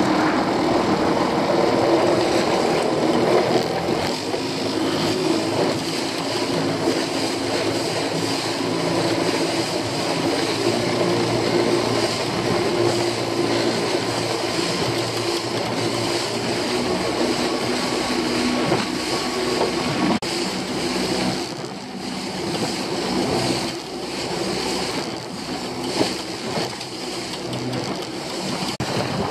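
Small fishing boat's engine running steadily under way, a constant drone with water rushing and splashing along the hull. The engine note eases a little about two-thirds of the way through.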